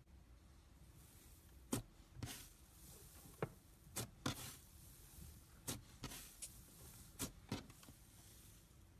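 Fluffy cloud slime being squeezed and poked by hand, giving about ten sharp little pops and squelches, some trailing into a short crackly hiss, with quiet gaps between.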